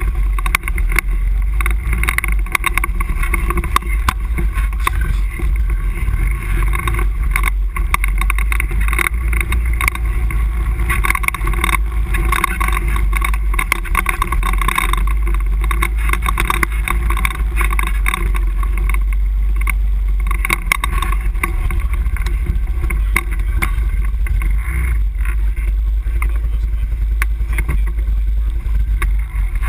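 ATV engine running steadily as the quad travels over a rough dirt trail, with a heavy low rumble and frequent short knocks from the bumps.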